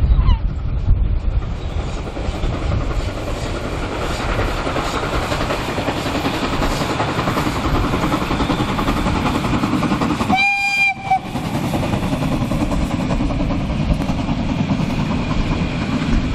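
Narrow-gauge steam train passing close by, the locomotive working and the coaches rolling past in a steady rumble. It gives one short whistle blast about ten seconds in.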